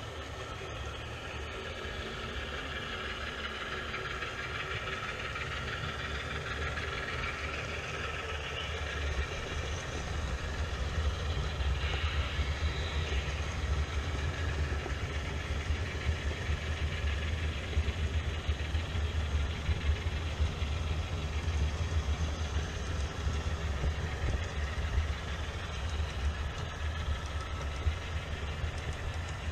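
HO-scale model train running on sectional track past the microphone: a steady rumble of wheels and motor that grows louder about nine to ten seconds in as the locomotives and freight cars reach it, with frequent short clicks.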